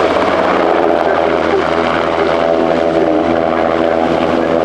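NH90 helicopter flying low and close, its main rotor and twin RTM322 turboshaft engines giving a loud, steady drone with a constant pitch.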